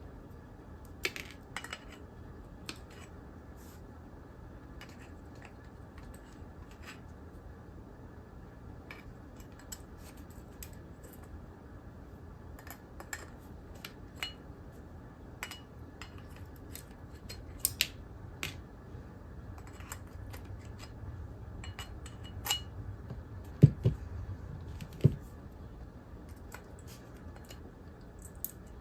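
Metal pliers clicking and scraping inside a metal TV switchbox housing while probing for a loose tab, in scattered small clicks, with two louder knocks late on.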